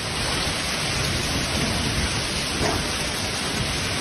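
Heavy storm precipitation falling hard and steadily on surfaces: a dense, even patter.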